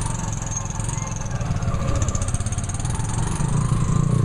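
Small motorcycle engine of a Philippine tricycle running steadily on the move, heard from inside the sidecar.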